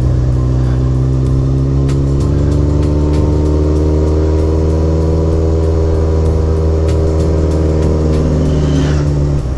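Motorcycle engine running at a steady cruise, its pitch rising slightly and then easing off, heard from the rider's onboard camera over background music.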